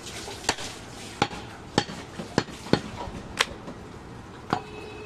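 A large butcher's knife chopping a goat leg on a wooden log chopping block: seven sharp strikes at an uneven pace, about one every half second to second.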